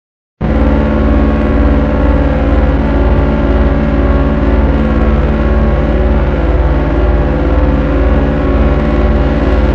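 A synthesized electronic drone cuts in abruptly after a moment of silence. It holds steady and loud, with many tones sustained together over a heavy low rumble.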